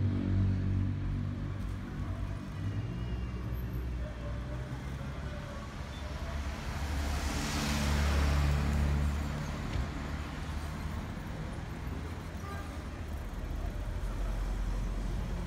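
Street traffic: a car drives past about halfway through, its engine and tyre noise swelling and then fading, over a steady low traffic rumble.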